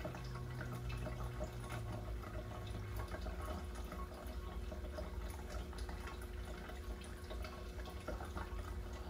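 Faint dripping, trickling water over a steady low hum.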